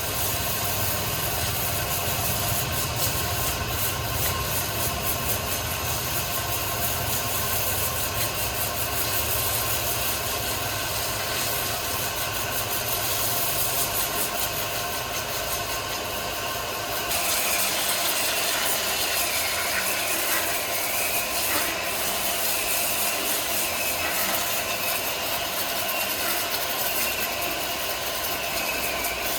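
Sawmill machinery running steadily. A little over halfway through, the low rumble drops away and a higher whine takes over, dipping in pitch now and then.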